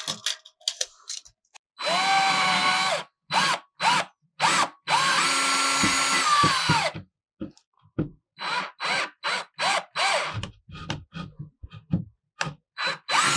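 Power drill boring a hole through a wall: a short run, then a longer two-second run with the motor spinning up and winding down, followed by a string of short trigger bursts.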